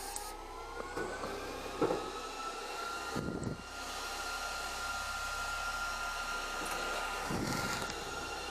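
A small electric motor whine that rises in pitch over the first two seconds, then runs steadily, with a few short knocks of metal parts being handled.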